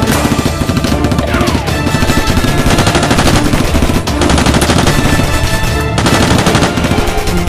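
Rapid, continuous automatic gunfire sound effects, shot after shot with no break, dubbed over a shootout with music underneath.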